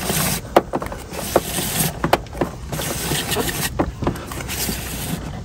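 Electrical wiring harness being pulled through a plastic cable channel along a car's door sill, the cable scraping and rustling against the plastic, with irregular clicks and knocks.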